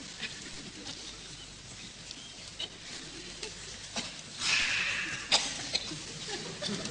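A man's hoarse, hissing cry imitating a vulture, lasting about a second, comes about four seconds in, amid faint rustles and clicks.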